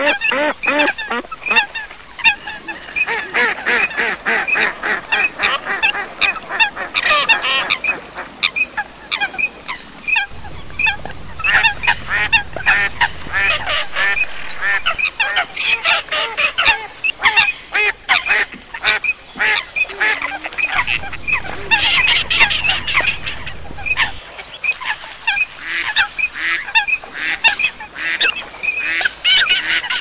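A flock of common coots with teal and pintail ducks calling, with many short calls overlapping in a continuous chorus.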